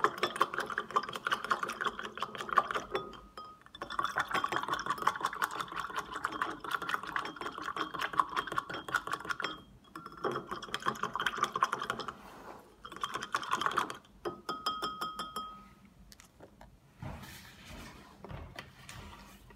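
Stirring rod clinking rapidly against the inside of a glass beaker as a water and surfactant solution is mixed. It comes in several spells of quick ticking, with short pauses between them, and dies down near the end.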